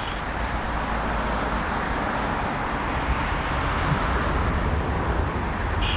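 Jet airliner engines heard from the ground as a steady rushing noise over a low rumble, swelling slightly toward the end.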